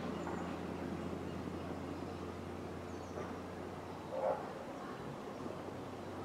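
A steady low hum, with one short animal call about four seconds in.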